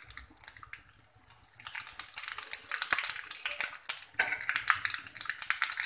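Mustard and cumin seeds sizzling in hot oil in a kadhai, the mustard seeds crackling and popping. The pops grow denser and louder from about two seconds in.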